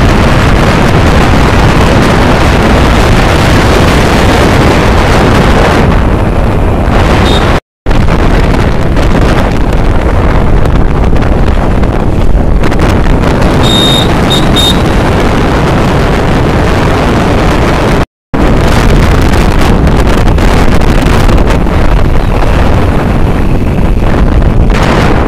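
Loud, steady wind rush buffeting the microphone on a moving motorcycle, which buries the ride's engine and road noise. The sound drops out completely for a moment twice, and a few short high beeps come about two-thirds in.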